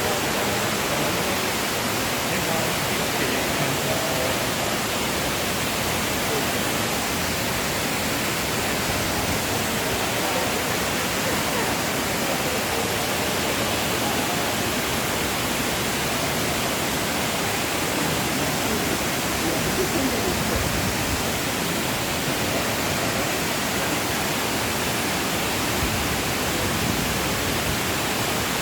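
Waterfall rushing in a steady, even wash of noise: the falling water of Fukuroda Falls.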